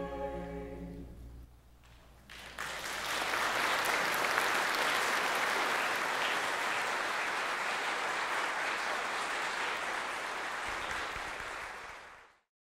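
A choir's final held chord dies away in the church's echo, and after a short silence the audience breaks into steady applause, which is cut off near the end.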